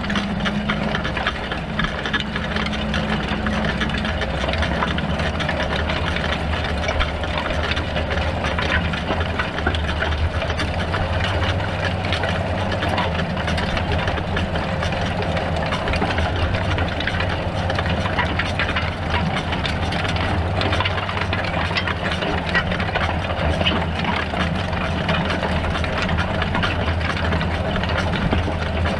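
John Deere 6930 tractor's six-cylinder diesel engine running steadily under load in the field, with the constant rattle and clatter of the mounted cultivator's rollers and tines working the soil.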